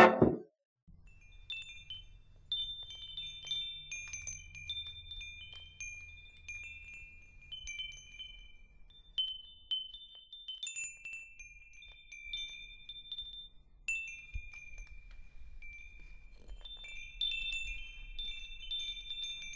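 Wind chimes tinkling: clear high notes at a handful of pitches, struck at irregular intervals and ringing into one another, over a faint low rumble.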